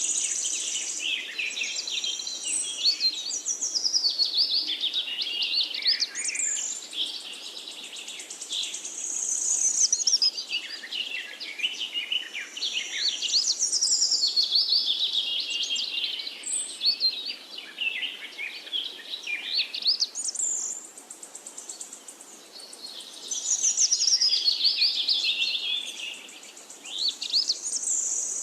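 Several forest birds singing together in a dense chorus of quick chirps, whistles and trills that overlap and rise and fall in waves. A high buzzing trill comes and goes over the top.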